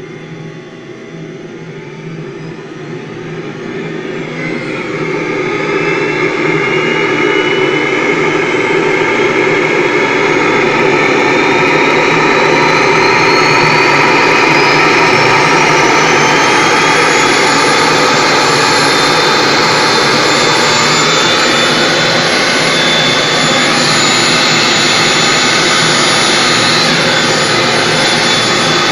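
Simjet 3000 model jet turbine starting up: a whine that rises in pitch and loudness for roughly the first fifteen seconds as the turbine spools up, then holds steady once it has settled into its running speed under automatic control.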